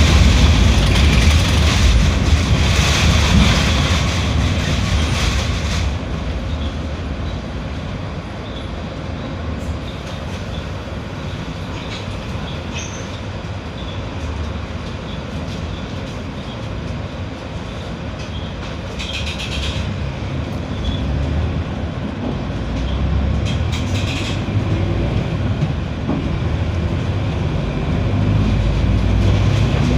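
Mercedes-Benz OF 1721L BlueTec 6 bus running, its diesel engine rumbling under road and rattle noise. It is louder for the first few seconds, eases off in the middle and builds again near the end, with two short hisses a little past halfway.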